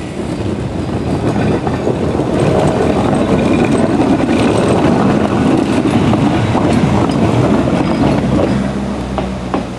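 A Blackpool single-deck tram running past on its rails, the rumble of its wheels and running gear swelling over the first couple of seconds as it comes close, holding, then fading near the end as it moves away.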